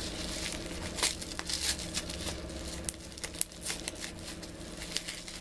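Tissue-paper gift wrapping crinkling and tearing as it is pulled open by hand, a string of short irregular crackles.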